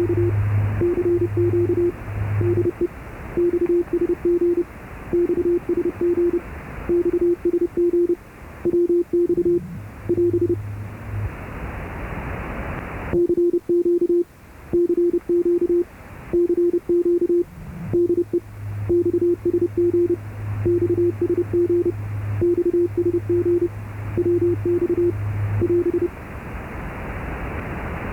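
Morse code (CW) signal on 8664 kHz heard through a ship's radio receiver: a steady beep keyed on and off in dots and dashes over receiver hiss, a station calling CQ. A second, lower-pitched keyed tone comes and goes underneath, and the hiss swells and then drops sharply about halfway through.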